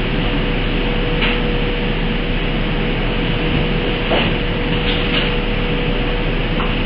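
Steady machine noise with a constant hum running underneath, and a few faint knocks from things being handled.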